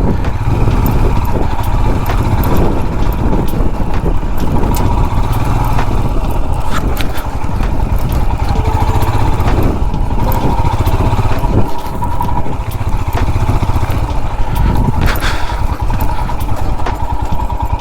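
Royal Enfield Himalayan's single-cylinder engine running steadily.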